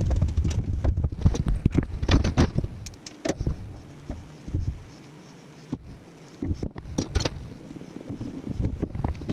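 Irregular clicks, knocks and rattles of parts being handled and fitted by hand, busiest in the first few seconds and again past the middle, with quieter pauses between.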